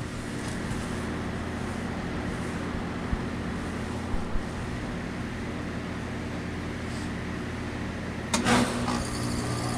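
Goodman GSZ14 heat pump outdoor unit running with a steady scroll-compressor hum during a defrost cycle. About eight seconds in, a short, loud whoosh marks the unit switching out of defrost.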